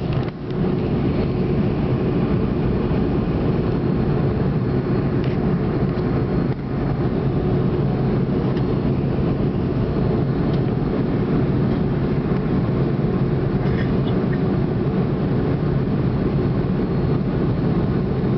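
Steady jet-engine and airflow noise heard inside an airliner cabin during the climb after take-off: a deep, even rumble with a faint hum.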